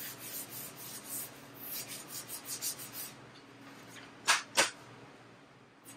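Hand block-sanding of 2K primer on a steel door with 320-grit sandpaper on a soft pad: a run of quick scratchy rubbing strokes for about three seconds. A little past four seconds come two short, sharp sounds close together.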